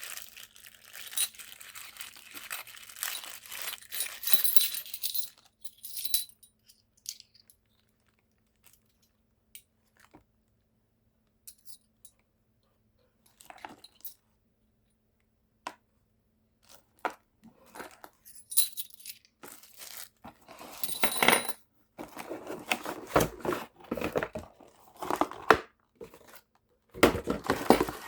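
Packaging being handled during an unboxing: wrapping crinkles and tears, with a quieter stretch of scattered light clicks and knocks in the middle, then more rustling and handling near the end.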